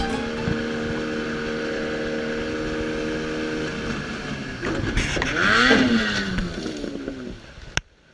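An engine running at a steady pitch, then revving up and back down about five seconds in, and dying away near the end; a couple of sharp clicks follow.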